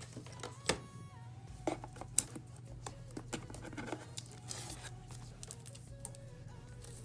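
Merchandise and packaging being handled as items are taken out of a box: scattered clicks, knocks and rustling, the sharpest about a second and two seconds in, over soft background music.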